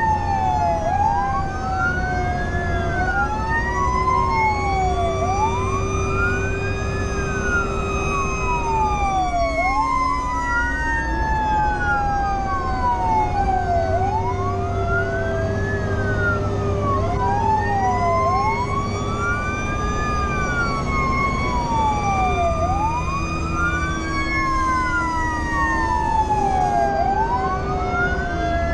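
Fire engine sirens sounding while the truck drives, heard from inside the cab. An electronic siren wails up and down about every four seconds over a mechanical Federal Q siren that slowly winds up and coasts down, with the truck's engine rumbling underneath.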